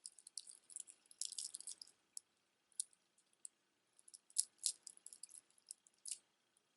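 Glass and stone beads of a layered necklace clicking and rattling against each other as it is handled, in two flurries of light clicks with scattered single clicks between.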